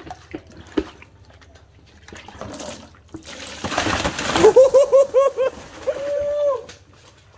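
Water and live fish poured from a collapsible fish bucket into a plastic basin, a loud splashing and sloshing about two to four seconds in as the fish land and thrash. Just after the splash comes a quick run of short high pitched calls and then one longer held call.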